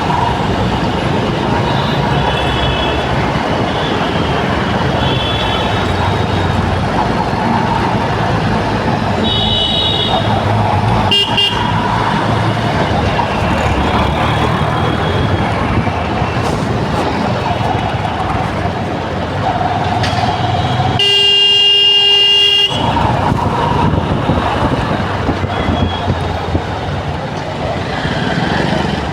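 Heavy, slow road traffic with a steady din of engines and repeated short vehicle horn honks, then one long, loud horn blast about three quarters of the way through.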